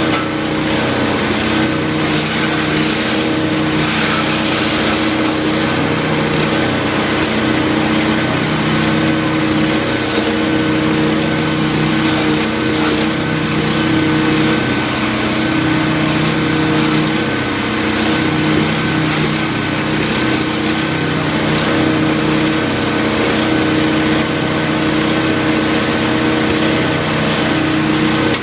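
A 13 hp wood chipper's engine running steadily at a constant speed, with short rushes of noise every so often.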